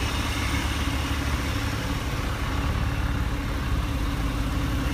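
Porsche 996 flat-six engines idling steadily with their rear engine lids open.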